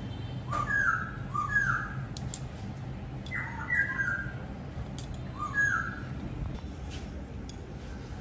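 Birds calling: short downward-sliding chirps in three brief groups, over a steady low background hum, with a few light clicks.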